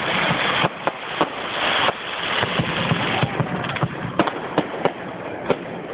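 Fireworks going off: a dense crackling hiss for about the first three seconds, then a string of separate sharp bangs.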